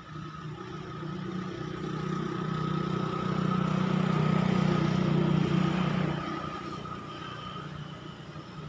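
A motor vehicle passes: its engine grows louder, peaks about halfway through, then fades away.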